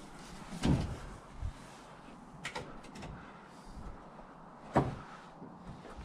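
Heavy thuds and lighter knocks on scaffolding as someone walks the timber boards and takes hold of a steel scaffold ladder to climb. There are two loud thumps about four seconds apart, with a few smaller knocks between.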